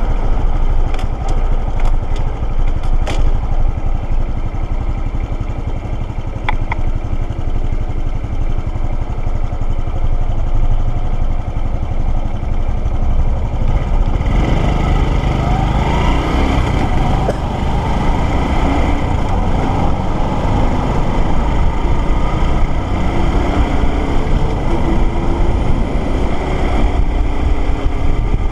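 Motorcycle engine running steadily at low speed, then about halfway through it revs up with rising pitch and the bike speeds up, wind noise rushing over the microphone as it cruises.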